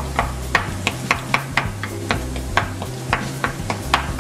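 Potato masher knocking against the pot as boiled potatoes are mashed with butter and yogurt, in sharp, uneven strokes about three or four times a second.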